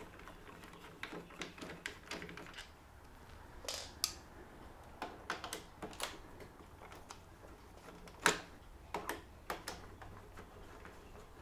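Irregular clicks and light knocks of a screwdriver working Phillips head screws out of a plastic lawn mower handle, with one sharper click about eight seconds in.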